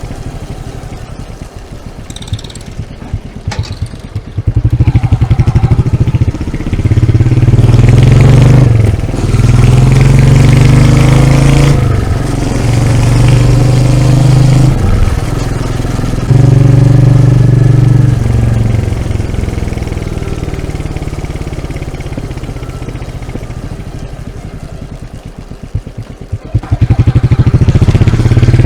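Single-cylinder Royal Enfield motorcycle exhaust at its stock silencer, idling, then revved hard about five times in quick succession. It settles back toward idle and is revved again near the end.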